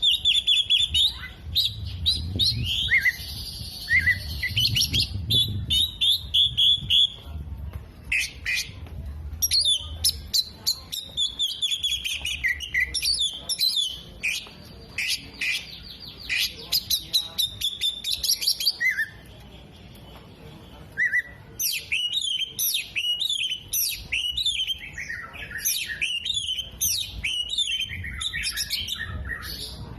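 Oriental magpie-robin (kacer) singing a loud, fast, varied song of chirps, trills and rapid clicking notes, worked through with imitations of other birds' calls such as sunbird, bulbul and lovebird. The song pauses briefly about two-thirds of the way through.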